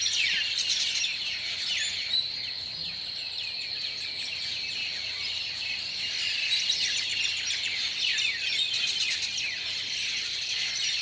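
A flock of birds chattering together as they settle into their roost at dusk: many overlapping short, falling chirps. A steady high-pitched whine runs underneath.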